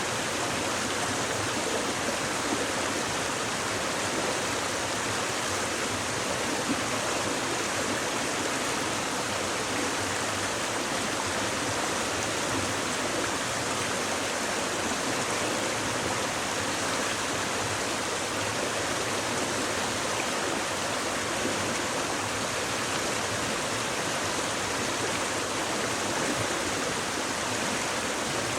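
A shallow stream babbling and splashing steadily over rocks.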